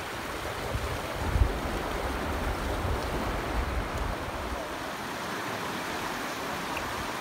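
River rapids rushing steadily. For the first four seconds or so there is a low rumble of wind on the microphone.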